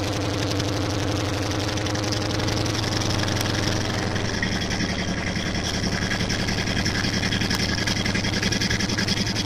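Dodge Charger R/T's 5.7-litre Hemi V8 idling just after start-up, its loud exhaust running through long-tube headers, off-road mid-pipes with no catalytic converters and two Flowmaster Super 10 mufflers with the resonators deleted.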